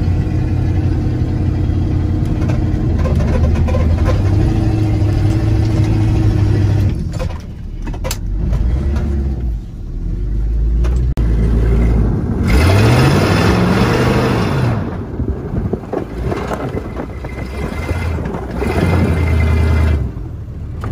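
Chevy K20 plow truck's 350 V8 running under load, heard from inside the cab, as the truck drives its plow blade into a snowbank. The engine runs steadily, drops back about seven seconds in, then revs up with a rising pitch a little past halfway.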